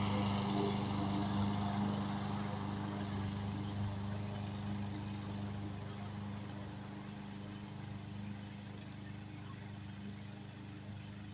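Self-propelled gasoline lawn mower engine running steadily, its hum growing gradually fainter.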